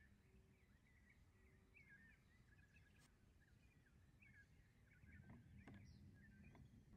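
Near silence, with faint birds chirping in the background throughout.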